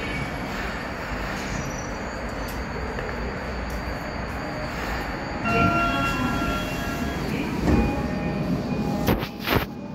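Tokyo Metro Ginza Line 1000 series subway train standing at an underground platform, with a steady rumble and hum. About five and a half seconds in, an electronic chime of several steady tones sounds, and two sharp knocks come near the end.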